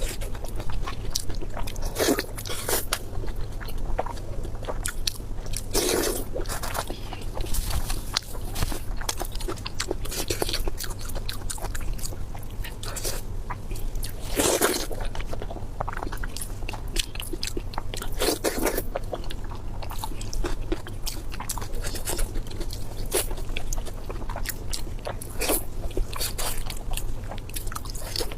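Close-miked eating: a person biting and chewing food, with repeated crunchy, crackly clicks and a few louder bites, over a steady low hum.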